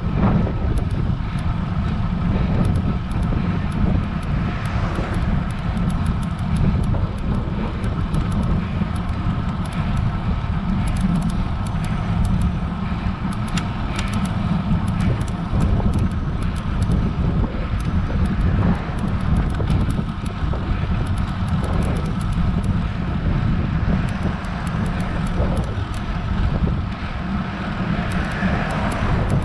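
Steady low wind rumble on the microphone of an action camera riding on a road bike climbing a hill, with faint light ticks throughout.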